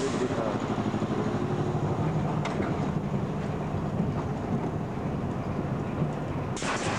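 Steel roller coaster train rolling along the track into the station at the end of the ride, its wheels rumbling and rattling steadily. A burst of hiss starts near the end.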